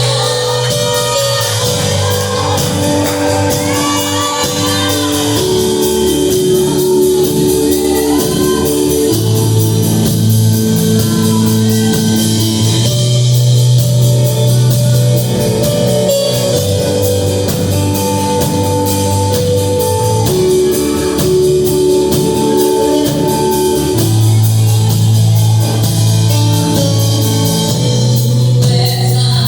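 A song playing, with sung vocals in the first few seconds over held bass notes and a steady drum beat.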